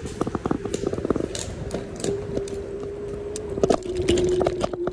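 A wheeled vehicle rolling along a rough path: a steady whine with irregular rattling and clicking over it, busiest at the start and again near the end.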